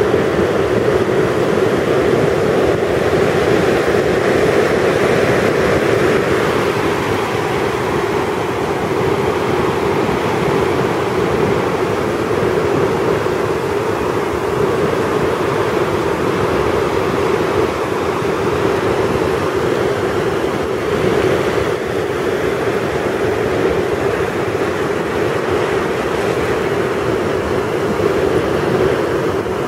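Surf washing in over flat sand at the water's edge: a steady, unbroken rush of shallow waves.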